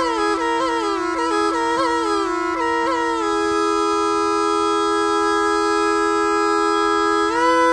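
Murli (been), the gourd-bodied snake charmer's pipe, played without a break: a steady drone note under a melody. The melody steps down through quick ornamented slides, holds one long note from about three seconds in, and rises again near the end.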